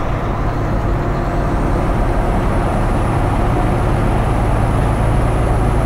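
Semi truck cab interior: steady engine rumble and road noise while the truck drives on a wet highway.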